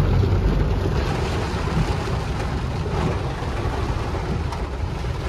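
A Maruti Suzuki WagonR driving through standing floodwater in heavy rain, heard from inside the cabin. Water thrown up by the tyres and rain hit the body and windows as a steady rushing hiss over a deep rumble.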